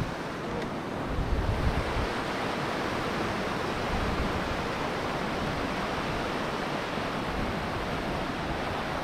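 Steady rushing of a fast stream of water, with wind buffeting the microphone between about one and two seconds in.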